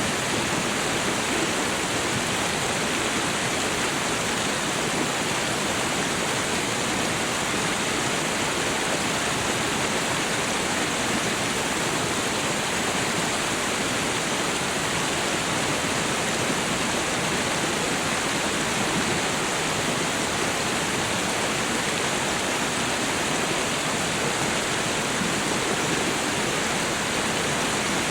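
Waterfall: a steady, unbroken rush of falling water with no changes or separate events.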